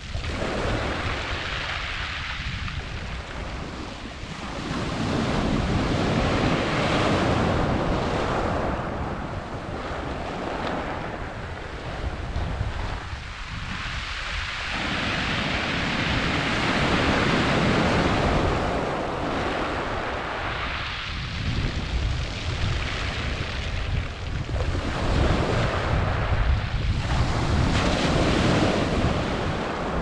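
Sea waves breaking on a shingle beach and washing up over the pebbles, the surf swelling and ebbing in slow surges roughly every ten seconds.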